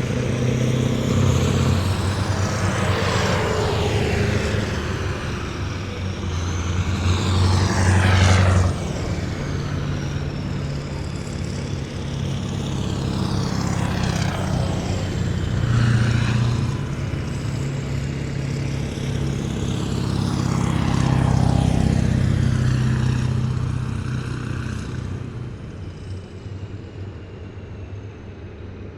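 A column of heavy military vehicles driving past one after another, each engine's drone swelling and sweeping down in pitch as it goes by. The sound fades near the end as the last one moves off.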